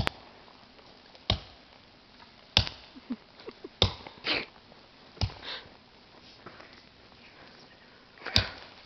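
Axe chops striking a small conifer's trunk, five sharp blows: four about every second and a quarter, then a pause and one more near the end.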